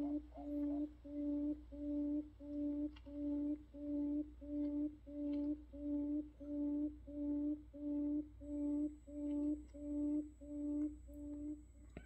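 Buttonquail calling: a long, even series of low hooting notes, about two a second, stopping near the end. This is the kind of call played as a decoy to lure buttonquails.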